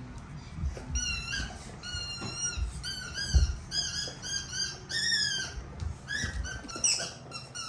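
A squeaky dog toy squeaking over and over in quick, short squeaks as a dog chews on it, with soft low thuds underneath.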